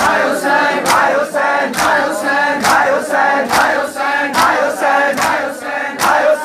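A group of mourners chanting a nauha (lament) together, with matam chest-beating: a sharp slap about once a second, in time with the chant.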